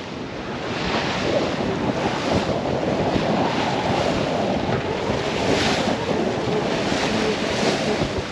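Wind buffeting the microphone over the rush of water along a sailboat's hull as it pushes through a choppy sea, with a wave surging past every second or two.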